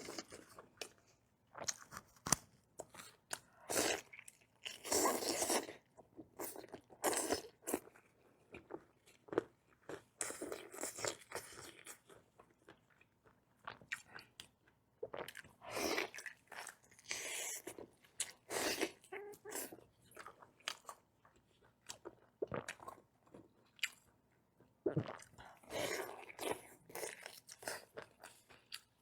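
Close-up eating sounds: a person biting and chewing food with crunching, in irregular bursts with short pauses between bites.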